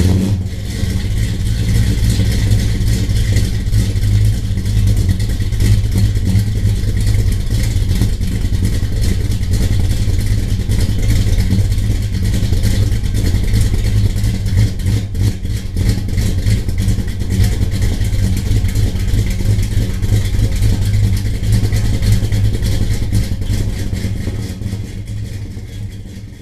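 Dodge Charger's 440 cubic-inch V8 running steadily with a deep, loud rumble, fading out near the end.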